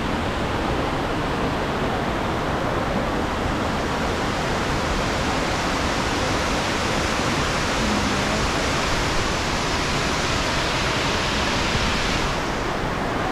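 Steady, loud rush of a large waterfall plunging into a gorge, heard up close as a dense even wash of water noise; the hiss loses its highest part about twelve seconds in.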